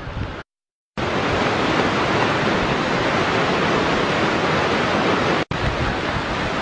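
Iguassu Falls at the Devil's Throat: a loud, steady rush of falling water. It cuts to silence for about half a second near the start and drops out again very briefly later on.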